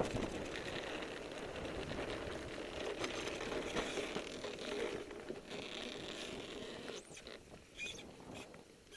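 Blokart land yacht rolling over firm beach sand: a steady rattling with many small ticks from the frame, rigging and wheels, thinning out over the last two seconds.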